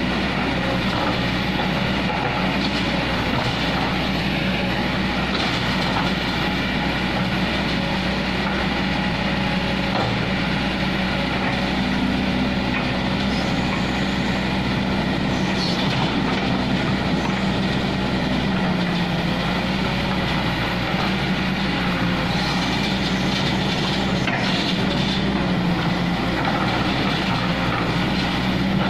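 Kobelco SK200 hydraulic excavator's diesel engine running steadily under working load as the boom and arm move; the engine note rises for a few seconds midway, then settles back.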